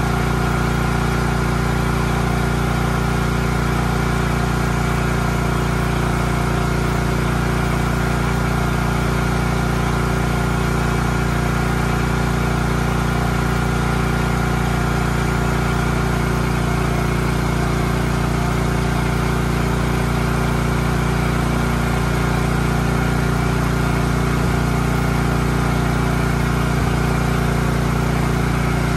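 Champion log splitter's small gas engine running at a steady, unchanging speed, with no split underway.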